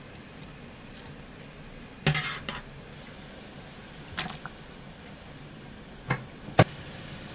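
A few sharp clinks and knocks of a metal mesh strainer and utensils against a pan of boiling broth, the loudest near the end, over a steady low hiss.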